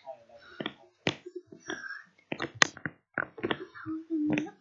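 A string of sharp taps and clicks, with a short hummed tone near the end.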